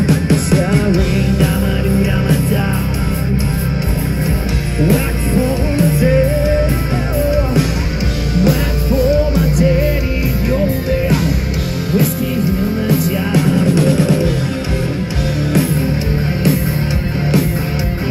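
Loud rock music with electric guitars, a steady drum beat and a singing voice.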